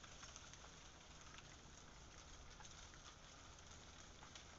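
Faint patter of melting ice dripping and dropping from ice-coated tree branches: many small scattered ticks over a steady hiss, like light rain.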